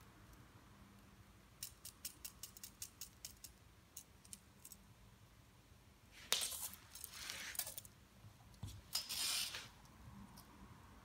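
A kitten playing with a feather wand toy on a hard floor: a run of quick, light clicks and clinks, then two longer rustling, scraping noises.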